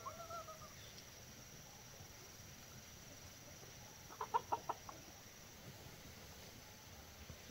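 Domestic chicken clucking: a quick run of about six short clucks about four seconds in, after a call that trails off right at the start.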